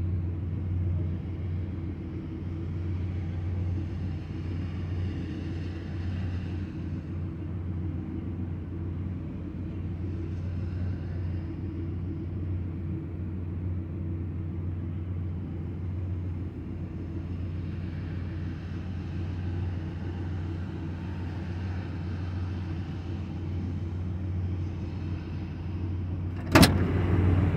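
Car engine idling steadily, a low even hum heard from inside the cabin, with light rain on the windshield. A single sharp knock sounds near the end.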